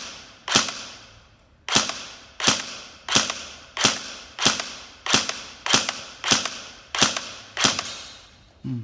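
Airsoft MP5K fired in single shots, eleven sharp reports spaced a little over half a second apart, each with a short decaying tail.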